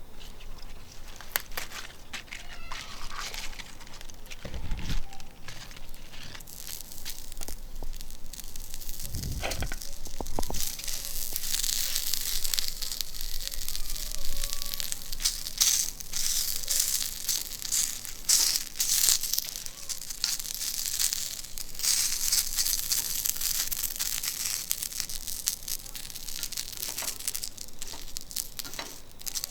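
Food sizzling and crackling in oil on a hot, thick iron griddle plate, fried only to burn off the new plate's iron smell as part of seasoning it. The crackle gets much denser about ten seconds in, and there are two low thumps before that.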